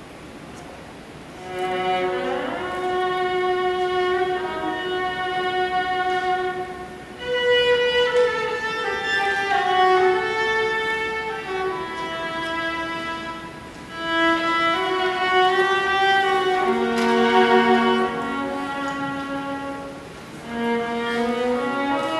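Solo violin played with the bow: a melody of long held notes with occasional slides, starting about a second and a half in and moving in phrases of several seconds with short breaks between them.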